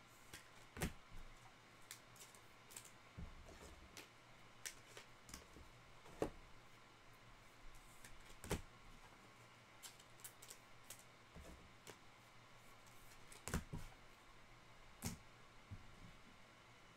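Topps Chrome Sapphire trading cards being handled and flipped through by hand: faint, irregular clicks and light rustles of glossy cardstock, with a few sharper snaps about 1, 6, 8.5 and 13.5 seconds in.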